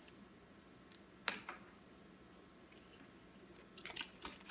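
Faint handling noise, a few light clicks and rustles, about a second in and again near the end, from a pair of socks and their packaging being handled.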